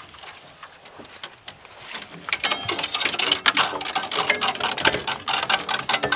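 Irregular metallic clicking and rattling around an aluminium diamond-plate dog box in a pickup bed, sparse at first and busy from about two seconds in.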